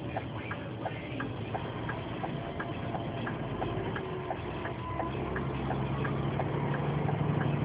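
Turn-signal indicator ticking evenly, about three ticks a second, inside a moving vehicle's cab over the engine's drone. The engine note strengthens and gets louder in the last couple of seconds as it accelerates.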